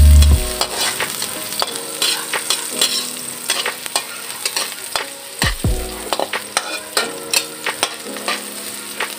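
Chopped garlic and onions sizzling in oil in a metal wok, stirred with a metal spatula that scrapes and clicks irregularly against the pan. A loud low drone cuts off about half a second in.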